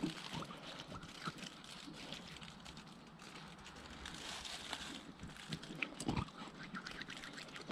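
Hands being washed under a thin trickle of water from a plastic bottle: faint wet rubbing, splashing and dripping, with many small clicks and one dull low thump about six seconds in.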